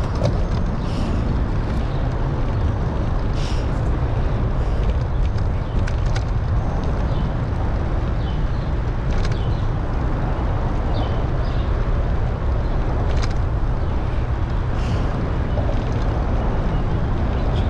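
Steady low rush of wind on the microphone of a camera carried on a moving bicycle, with a few faint short high chirps and ticks scattered over it.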